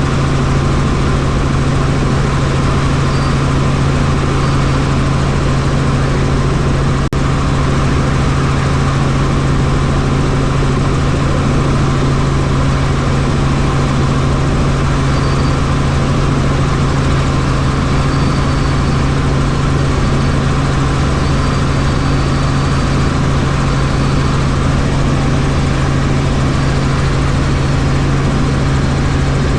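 Helicopter in flight: steady rotor and turbine engine noise with a strong, constant low hum.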